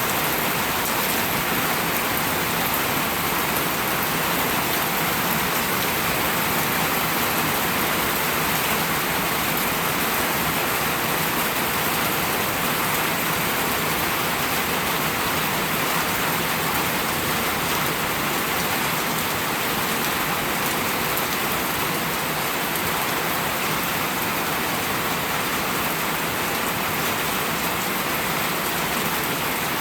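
Steady rain falling and pattering on surfaces, an even hiss with no let-up or change in strength.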